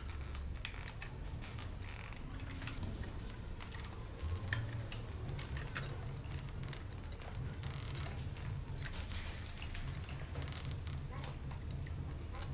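Hand tools working on a motorcycle's rear number-plate bracket and tail fairing: scattered small clicks and metallic ticks of a screwdriver or spanner on fasteners, metal plate and plastic. A steady low hum runs underneath.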